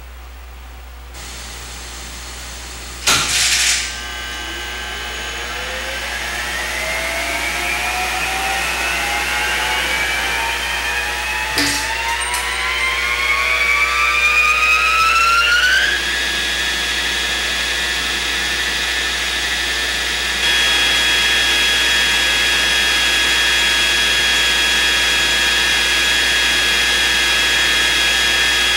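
Electric motor of a vertical turbine well pump starting up. A loud clunk comes about three seconds in, then a whine that rises steadily in pitch for about twelve seconds as the motor comes up to speed. It settles into a steady running hum that grows a little louder later on.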